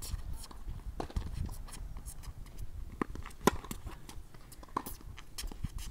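Tennis balls struck by racquets and bouncing on a hard court during a baseline rally: a string of short sharp pops, the loudest about three and a half seconds in.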